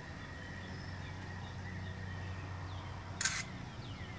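Faint birdsong, short descending chirps repeated several times, over a low steady hum. About three seconds in comes one brief harsh noisy burst.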